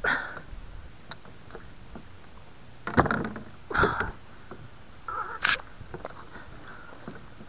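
Muskellunge thrashing in a landing net beside a kayak: four short bursts of splashing and knocking.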